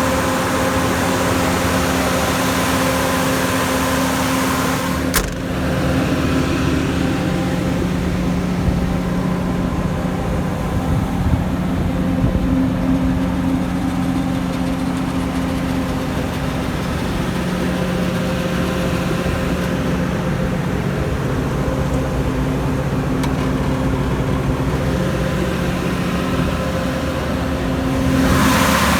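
Perkins diesel engine of a 115 kW generator set running at a steady speed with an even hum. About five seconds in there is a sharp click and the sound turns duller, then it brightens again near the end.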